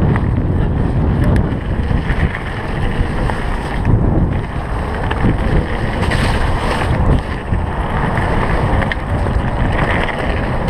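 Mountain bike riding a rough dirt trail: wind buffeting the handlebar camera's microphone over the rumble of the tyres on dirt, with occasional knocks from the bike.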